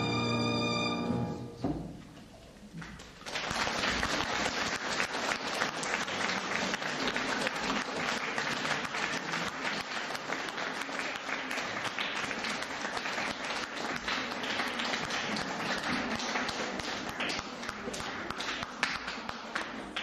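A violin and piano piece ends on a held chord about a second in. After a short pause, the audience breaks into steady applause.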